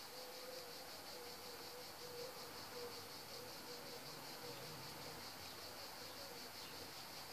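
A steady, high-pitched insect trill, pulsing evenly about five times a second, over faint hiss.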